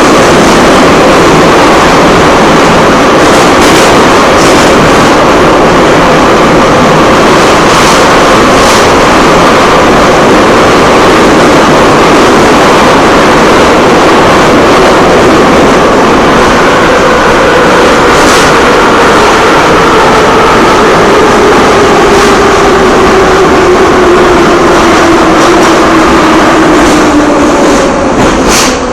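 Moscow metro train running between stations, heard from inside the carriage: a loud, steady rumble and rush of noise with a faint motor whine. The whine falls slowly in pitch through the second half as the train slows toward the next station, and the noise eases off just before the end.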